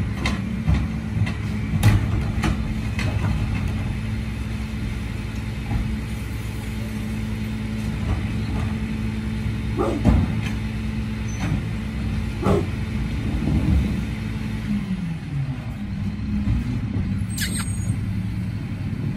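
Garbage truck engine running steadily, its pitch dropping about fifteen seconds in, with a few sharp knocks and a short air-brake hiss near the end.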